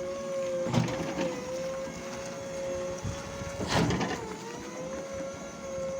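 Electric motor of an electro-hydraulic aerial work platform running with a steady whine. Two knocks come about three seconds apart, and after each the pitch sags briefly, as if under a change of load.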